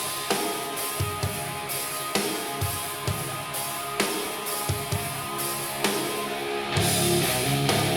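Rock music with drum kit and guitar, played through a pair of desktop computer speakers and recorded in the room. About seven seconds in, the band comes in fuller and louder.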